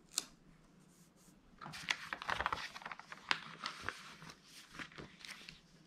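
Paper rustling and crackling, with small clicks and taps, as a sheet of printed planner stickers is handled and a sticker is picked off it. A single sharp tap comes just after the start, and the crackling runs for about three and a half seconds from near two seconds in.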